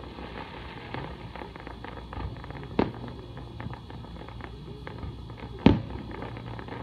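Aerial fireworks going off: two sharp bangs, about three seconds in and again near six seconds, the second the louder, with scattered light crackling between them.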